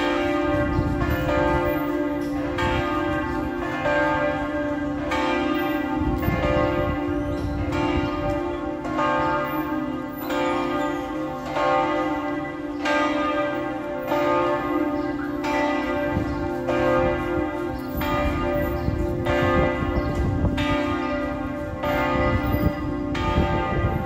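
Bells of the Panama City Cathedral tower ringing, struck about once a second, each stroke ringing on into the next so that a steady hum carries underneath.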